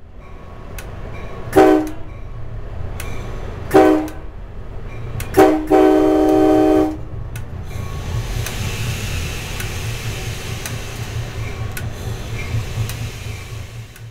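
Train air horn sounding a several-note chord: two short blasts about two seconds apart, then a short blast running straight into a longer one of over a second, over the steady low rumble of the moving train.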